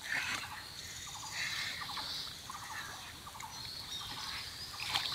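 Small birds chirping here and there, with faint water drips and sloshing as a wet cast net is lifted from the pond.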